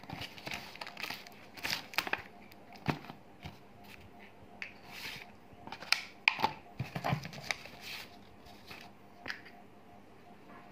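A folded paper leaflet and a plastic blister pack on a card backing being handled: irregular rustling and crinkling with sharp crackles and clicks, loudest about six to seven seconds in.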